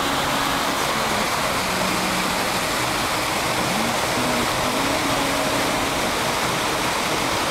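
Goðafoss waterfall: heavy white water pouring over rock, a loud, steady rush of falling water.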